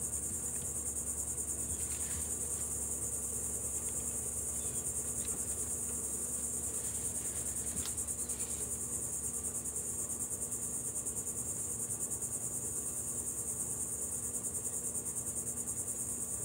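Steady, high-pitched insect chorus, a continuous fast-pulsing trill, with a faint low hum beneath it.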